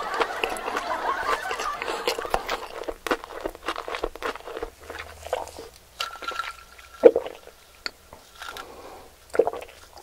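A person chewing and crunching raw leafy greens, with many sharp snaps and clicks as stems are broken off by hand. Indistinct voices are heard in the first few seconds.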